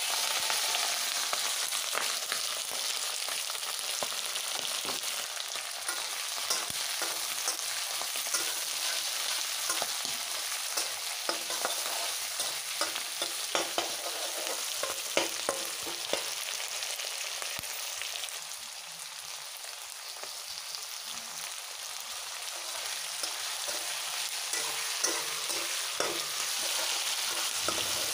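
Pigeon meat and potato pieces dropped into hot oil in an aluminium kadai, sizzling the moment they land. They go on frying with a steady sizzle while a wooden spatula stirs and scrapes them, with frequent clicks against the pan. The sizzle eases a little past halfway and builds again near the end.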